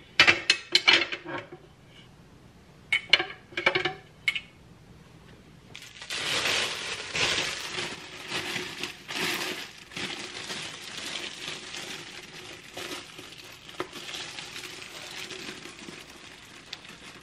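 A few sharp clinks as the glass lid of a slow cooker is lifted and handled, then a thin plastic slow cooker liner crinkling for about ten seconds as it is unfolded and pressed into the crock and over its rim.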